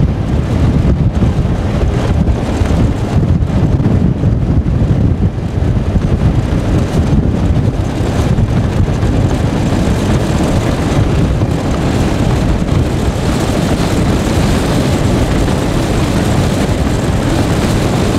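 Steady, loud low rumble of a moving vehicle's road and wind noise, with wind buffeting the microphone; a brighter hiss builds over the last few seconds.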